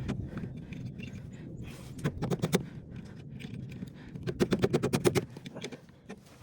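Hand tools clicking and tapping against a rusted-in cotter pin on a snowblower wheel axle: a few sharp metal clicks about two seconds in, then a rapid run of clicks lasting about a second near the middle.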